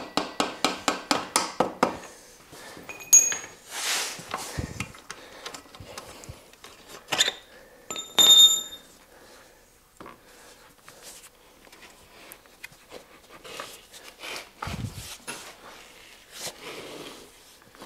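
A mallet tapping a motorcycle front axle out of the hub, about four quick strikes a second with metallic ringing, stopping about two seconds in. Scattered metal clinks and knocks follow, a few of them ringing, as the axle comes free and the wheel is handled.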